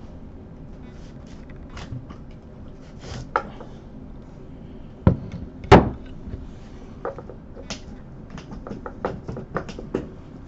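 Scattered clicks and knocks of small microscope parts being handled and set down, with two louder knocks a little past halfway and a run of lighter clicks near the end, over a low steady hum.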